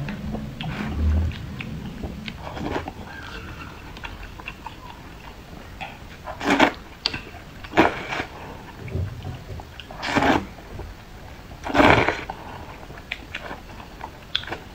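Close-miked mouth sounds of a person eating noodles in spicy broth: four short, loud slurps in the second half, with quieter chewing and small wet clicks between them.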